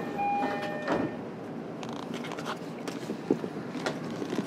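E231-series commuter train's two-tone door chime sounds its last notes, then the sliding doors knock shut about a second in. Scattered clicks and knocks follow.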